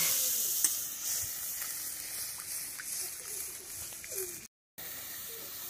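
Curry gravy simmering in a large wok, a steady sizzling hiss that fades over the first few seconds. The sound drops out briefly about four and a half seconds in, then the hiss resumes.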